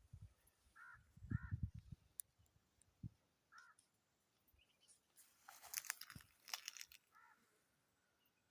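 Faint, short harsh bird calls: two notes about a second in, then single notes later. Between them there is rustling and crackling, with a few low thumps near the start.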